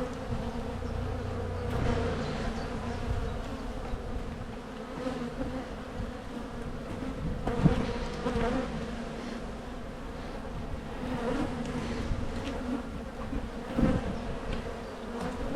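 Honey bees buzzing in a steady, dense hum around an open hive during a frame inspection, with a couple of brief knocks about 8 and 14 seconds in.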